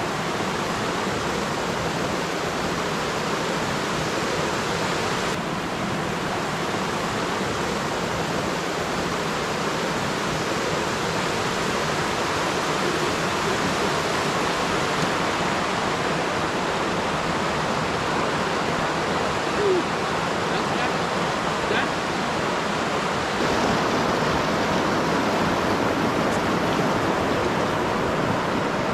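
Fast mountain river rushing over rocks and boulders in white-water rapids, a steady, unbroken rush of water.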